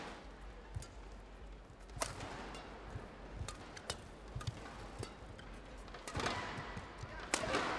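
Badminton rackets striking a shuttlecock in a fast singles rally: about eight sharp cracks, roughly one a second. The arena crowd's noise swells near the end.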